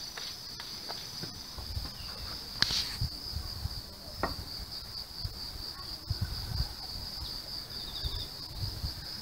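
Insects buzzing in a steady, high-pitched drone, with one sharp pop about three seconds in as a drink can is opened, and wind rumbling on the microphone.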